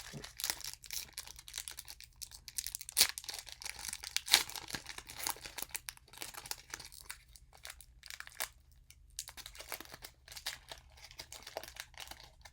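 Foil wrapper of a Pokémon card booster pack crinkling and tearing as it is opened by hand, an irregular run of crackles with the loudest bursts a few seconds in.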